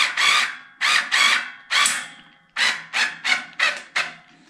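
Cordless screwdriver driving a bolt into a metal bed-frame joint, running in short repeated bursts about three a second, with a brief pause about two seconds in.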